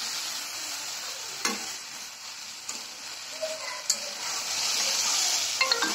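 Diced vegetables frying and sizzling in oil in a metal karai while being stirred with a metal spatula. The spatula scrapes and knocks against the pan a couple of times.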